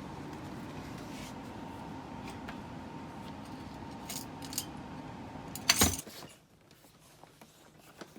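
Light clicks and a short, loud clatter of small hard objects about six seconds in, over a steady background hum that stops suddenly right after the clatter.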